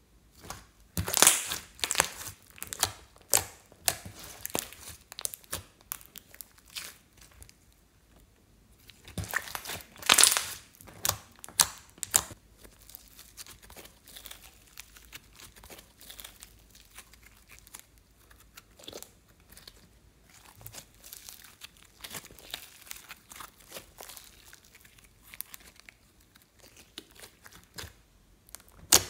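Hands stretching and squeezing slime, giving many sharp crackling pops and tearing sounds as trapped air bubbles burst. The crackling comes in two loud clusters, about a second in and again around ten seconds in, with softer, sparser crackles in between and after.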